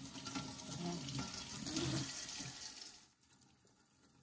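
Kitchen tap running into the sink as beet-stained hands are rinsed under it; the water is shut off about three seconds in.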